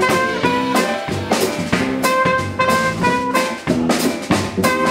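Small jazz band playing: a trumpet carries the melody in a run of short held notes over a drum kit with cymbal and drum hits, with piano and upright bass.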